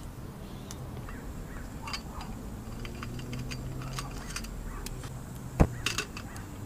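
Light metal clicks and knocks as a metal cross pot stand and a titanium pot are set onto a lit Trangia alcohol stove, with one sharp knock about five and a half seconds in, over a low steady rumble.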